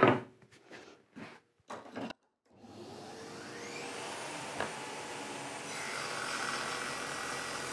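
A few light handling knocks, then a table saw motor starting up with a rising whine and running steadily. About six seconds in the sound grows fuller as the blade cuts a mitre through the board, and it stops abruptly near the end.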